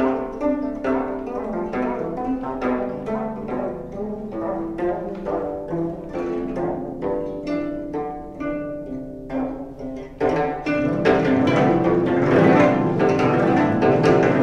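Three 25-string gayageums (Korean zithers) plucking separate, ringing notes. About ten seconds in the texture thickens abruptly into a louder, dense flurry of rapid plucking.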